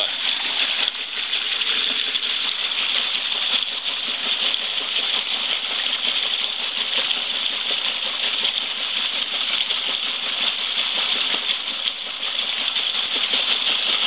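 1954 Frigidaire washing machine in its wash cycle: water churning and sloshing in the tub with a steady, dense clatter from the machine.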